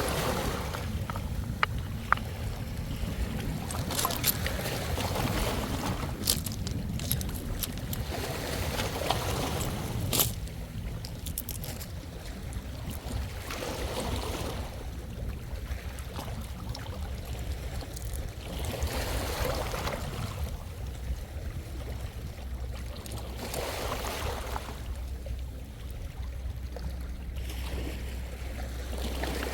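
Small sea waves washing onto the shore, a swell coming in every four or five seconds, with a steady low wind rumble on the microphone.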